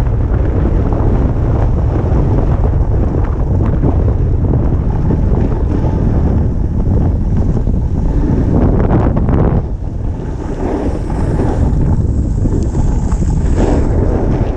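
Wind buffeting the action camera's microphone as it rides down a ski run, with a steady hiss of the board sliding over packed snow. The rumble eases briefly about ten seconds in.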